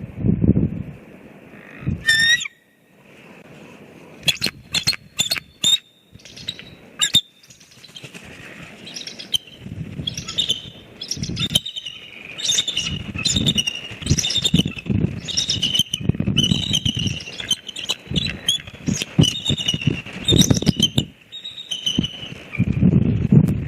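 Bald eagles calling in a long run of quick, high-pitched chirps, with wind gusts buffeting the microphone.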